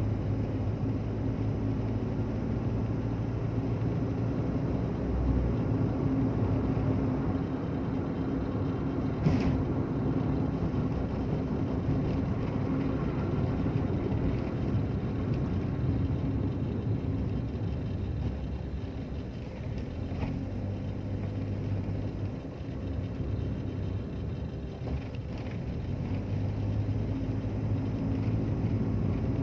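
Car cabin noise from a car driving on wet roads: a steady low engine and tyre rumble, with a single sharp knock about nine seconds in.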